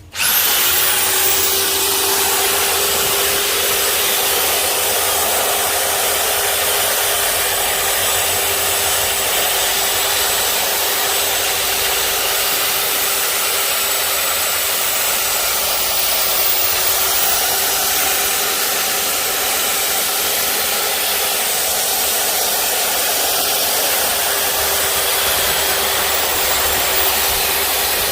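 Powerbilt 4-26 rotary hammer switched on and running steadily, a constant motor whine over a hiss.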